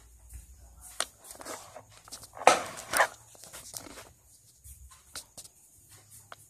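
Handling noise as the recording camera is picked up and moved: scattered knocks, scrapes and rustles, the two loudest close together about two and a half and three seconds in, then a few lighter clicks.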